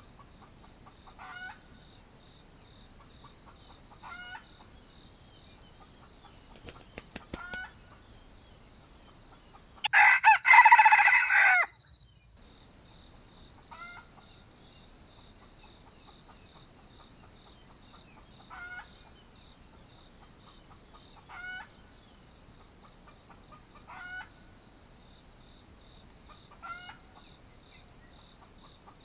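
A wild junglefowl rooster crows once, loudly, about ten seconds in. Short clucking calls repeat every two to three seconds around it.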